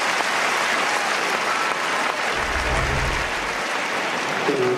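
Large tennis-stadium crowd applauding a point: a steady, dense clapping. A low rumble joins for about a second, some two seconds in.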